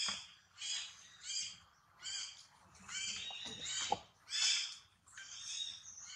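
Short, high-pitched animal calls repeating about one and a half times a second, each a brief squawk. Two sharp clicks come a little before the last third.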